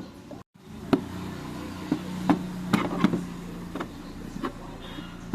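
A series of sharp, irregularly spaced clicks and knocks from tools and scooter parts being handled, over a low steady hum.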